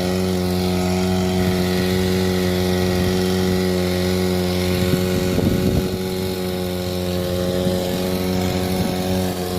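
Diesel engine of a JCB backhoe loader running steadily at constant speed, with a brief rougher patch about five seconds in.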